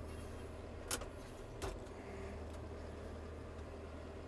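John Deere 6420 tractor's diesel engine running steadily as the loader grapple is raised toward a fence post, with two sharp clicks about a second in and half a second later.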